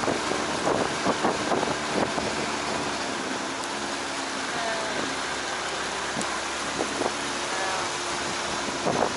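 Bass boat under way at low speed: a steady rush of wind on the microphone and motor noise.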